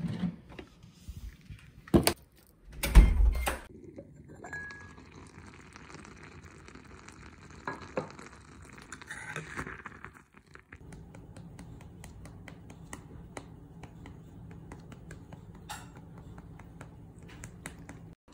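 Cooking sounds: two loud knocks about two and three seconds in, then a spoon stirring and clinking in a ceramic pot of steamed egg, over a steady hiss of cooking with many small clicks.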